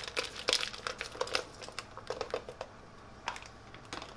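Plastic pouch of six-bean medley crinkling in the hands as the beans are squeezed out. A dense crackle that thins to a few scattered ticks after about two and a half seconds.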